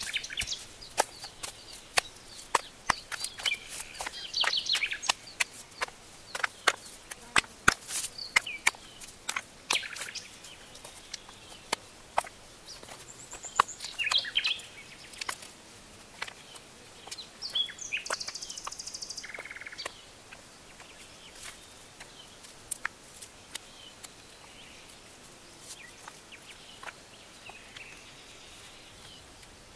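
Rocks clacking and knocking against each other as stones are tossed and stacked into a ring on the forest floor: many sharp knocks for about the first twenty seconds, then only a few. Small birds chirp in the background.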